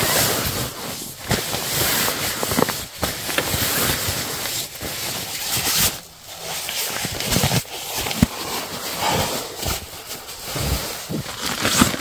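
Camping gear being handled and packed: irregular rustling of fabric and tarp with scattered knocks and bumps.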